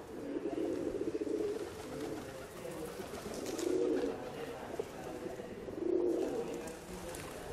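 Doves cooing in a run of low, throaty phrases, with the strongest coos about a second in, around four seconds and around six seconds.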